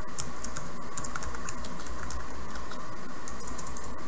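Computer keyboard being typed on in short, irregular runs of key clicks, over a steady background hum.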